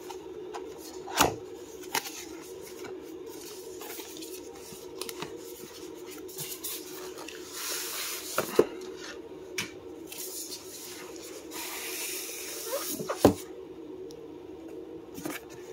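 A styrofoam insert is slid out of a cardboard box and set down, making scraping and rubbing noise with a few sharp knocks; the loudest knock comes near the end. A steady low hum runs underneath.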